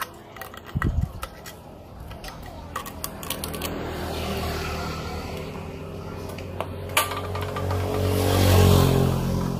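Metal engine parts and tools clinking and scraping, with a few sharp clicks in the first seconds. From about three seconds in, a passing motorbike's engine hum swells, is loudest near the end, then fades.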